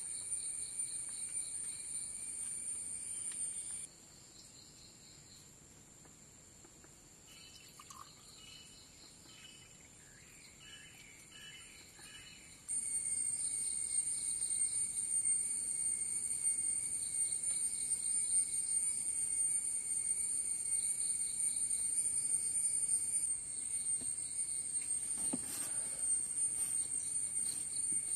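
A steady high-pitched chorus of insects, with a rhythmically pulsing chirp over it. It drops away for several seconds about a sixth of the way in, when a few short bird chirps are heard, then returns loud. A single brief knock comes near the end.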